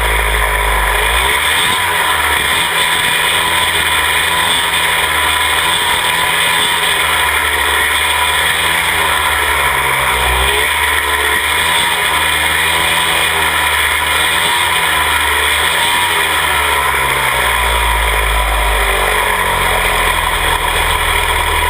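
Hurricane Midget race car's engine running at racing speed, its pitch rising and falling again and again as it accelerates and lifts, over a steady roar of wind and road noise.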